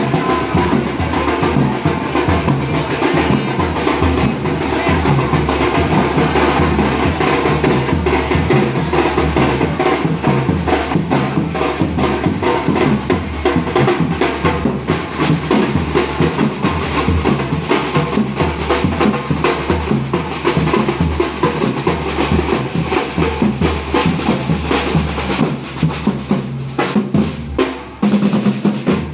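Parade marching band's drums playing a loud, fast cadence: rapid snare drum rolls and strokes over steady bass drum beats, dipping briefly near the end.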